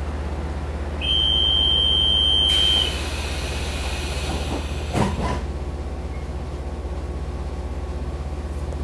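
Inside a standing EMU700 electric train: a steady low electrical hum, then a high door-warning buzzer sounds for about two seconds. A rushing hiss follows as the doors slide, ending in a thump about five seconds in as they close.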